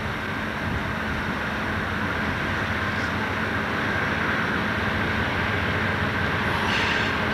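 GE diesel-electric locomotives on the head end of a loaded coal train running toward the listener, a steady low engine hum under a wide rushing noise that grows gradually louder as they approach.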